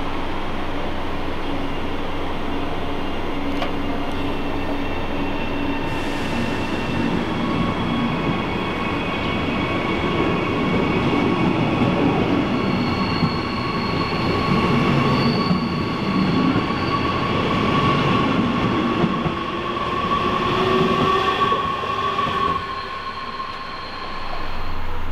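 Double-deck regional train, pushed by a class 147 electric locomotive, running past along the platform: a dense rumble of wheels on rail with a steady high whine that sets in about seven seconds in. It grows louder as the coaches go by, then drops away near the end as the train leaves.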